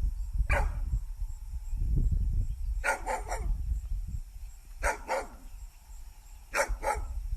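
A dog barking: one bark, then short runs of two or three barks about every two seconds, over a steady low rumble.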